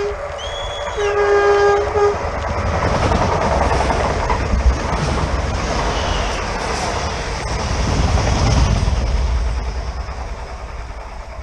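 Electric passenger train sounding its horn in short steady blasts over the first two seconds, then passing close by with a loud rush of air and low rumble that swells and fades.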